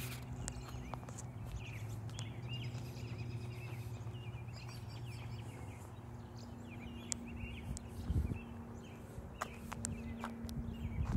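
Several birds chirping and calling throughout, over a steady low hum, with footsteps on a concrete sidewalk and a few louder thuds near the end.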